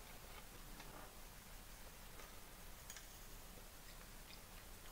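Near silence, broken by a handful of faint, scattered clicks and light taps of wooden chopsticks and bowls being handled at the table.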